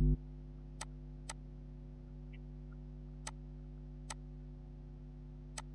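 Five sharp computer mouse clicks at uneven intervals, two of them close together near the start and one near the end, over a steady low electrical hum. The hum drops in level just after the start.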